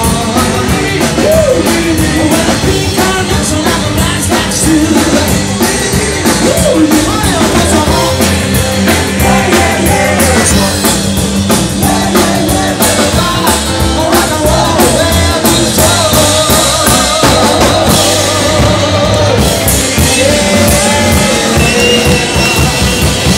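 Rock band playing live, loud and unbroken, with a singer over drums and guitars.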